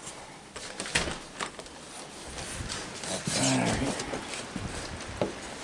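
Dry pet food being scooped and thrown out: a few sharp knocks, then a rasping scrape lasting about a second, and another knock near the end.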